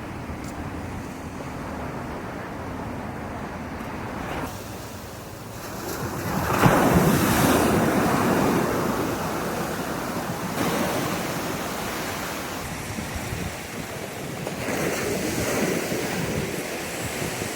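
Ocean surf: waves breaking and washing up a beach, one break swelling up about six and a half seconds in as the loudest moment and slowly fading, with a smaller surge near the end.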